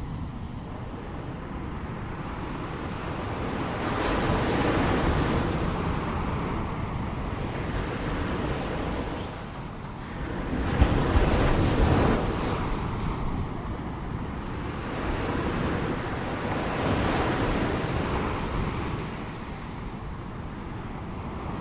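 Ocean waves breaking and washing on a shore, the surf swelling and easing in surges every few seconds, with the biggest wave crashing about halfway through.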